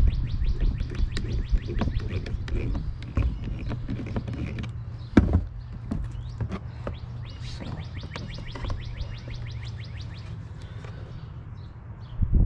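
A bird's rapid trill of high chirps, about ten a second, in two long runs, over a steady low hum. A sharp knock about five seconds in.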